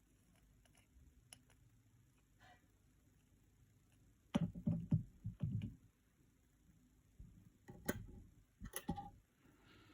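Small hand tools clicking and knocking against a repair bench as they are handled: a few faint ticks, a cluster of knocks about halfway through, then two sharp clicks near the end.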